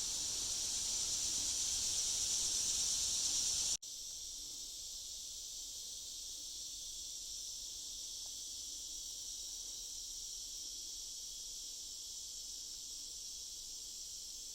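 Steady high-pitched chorus of forest insects. About four seconds in it drops abruptly to a fainter level, losing a low rushing noise that lay beneath it.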